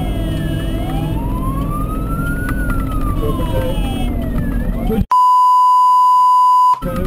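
Fire engine's siren wailing, rising and falling slowly, over the engine and road rumble heard from inside the cab. About five seconds in, everything cuts out for a steady beep that lasts under two seconds, then the siren comes back.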